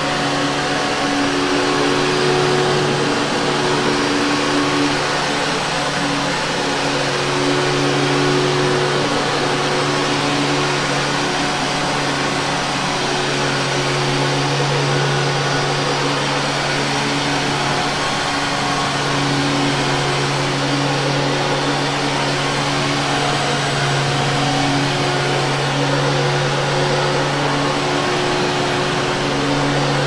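Vintage Hoover Caddy upright vacuum cleaner running steadily while pushed over carpet: a constant motor hum over the rush of air.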